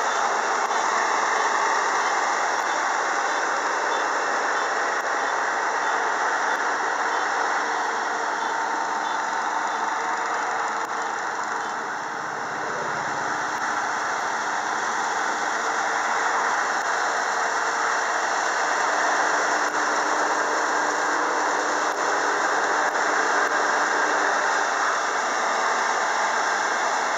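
Kubota ER108 Dynamax crawler combine harvester with its Kubota V3800 four-cylinder diesel running under load while cutting and threshing rice. It makes a dense, steady mechanical noise that is briefly a little quieter about twelve seconds in.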